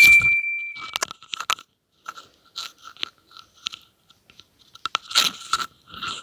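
Sound effects for an animated subscribe button. A click and a bell-like ding ring at the start and fade out within about a second, followed by a string of short clicks and noisy bursts, loudest about five seconds in.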